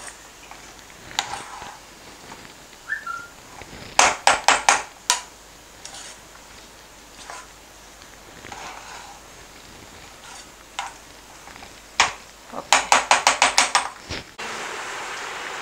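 Metal utensil clinking against a metal cooking vessel. There are two quick runs of sharp taps, about five a little after four seconds in and about eight near the end, with a few single knocks between.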